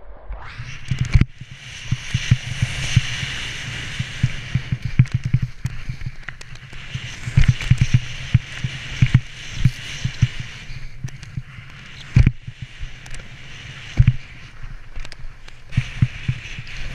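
Wind rushing over a GoPro's microphone and skis running fast through powder snow, with frequent sharp knocks and thumps as the skis hit bumps.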